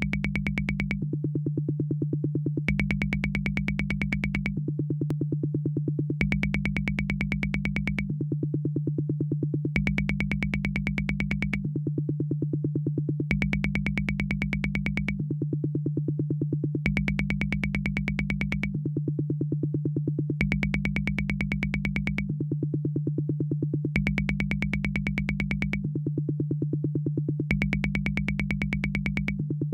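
Univox drum machine running a steady, fast electronic pattern over a continuous low tone. The pattern alternates between two sections about every two seconds, one with a deep low end and a bright high note, the other with a mid-range tone, repeating throughout.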